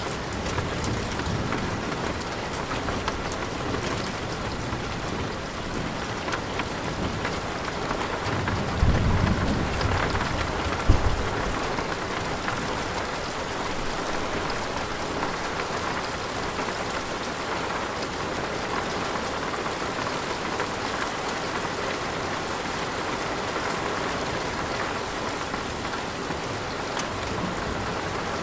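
Steady rain with a low rumble of thunder about nine seconds in, ending in a sharper thunderclap around eleven seconds.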